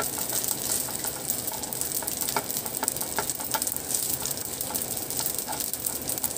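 Cooked rice sizzling in hot oil in a nonstick frying pan as it is stir-fried with a wooden spoon. Scattered light taps and scrapes of the spoon against the pan sound over a steady high sizzle.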